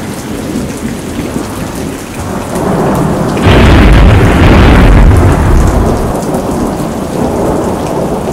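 Thunderstorm sound effect: steady rain under rolling thunder that builds to a loud thunderclap about three and a half seconds in. The thunder rumbles on for a couple of seconds, then slowly dies away.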